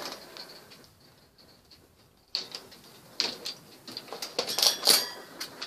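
Quiet for about two seconds, then a run of light clicks and rattles as objects in a wire rat cage are handled.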